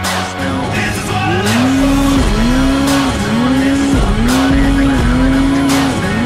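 Snowmobile engine revving up and down over and over, its pitch rising and falling about six times in a row, starting about a second in, as the sled ploughs through deep powder. Background music plays underneath.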